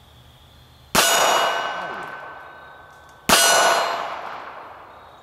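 Two shots from a Magnum Research Micro Desert Eagle .380 ACP pocket pistol, about two seconds apart, each striking a steel target plate that rings out and slowly fades.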